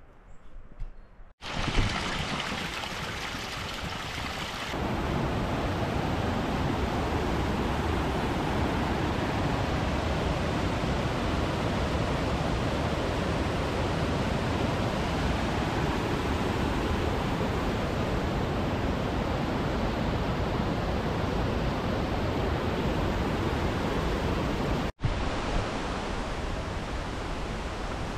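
Steady rushing of a mountain stream, with no pitch or rhythm to it. The sound jumps abruptly at cuts about a second and a half in, again a few seconds later, and near the end.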